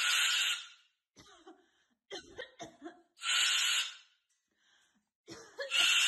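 Sulphur-crested cockatoo making harsh, cough-like sounds: three loud bursts about three seconds apart, with softer short sounds in between.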